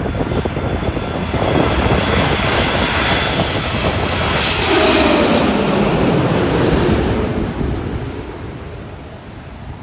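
Qatar Airways Airbus A350 jet airliner passing overhead on landing approach. The engine noise builds to its loudest about halfway through, its whine falls in pitch as it goes by, and it fades away near the end.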